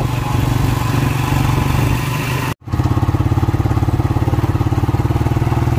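Motorcycle engine running steadily on the move, with wind noise on the microphone. The sound drops out for an instant about two and a half seconds in.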